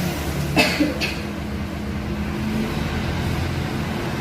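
Steady low mechanical hum, with two short sharp noises close together about half a second in.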